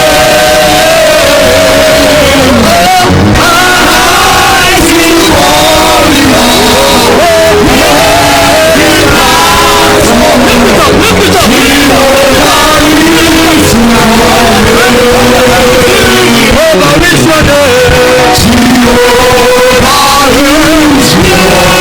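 Loud worship music with singing over it, continuous throughout.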